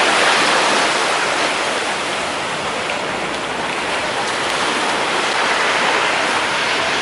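Sea surf washing onto a beach: a steady rushing noise, slightly louder near the start.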